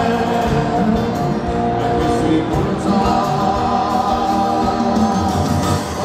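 Live rock band playing: singing voices holding long notes over electric guitar and bass.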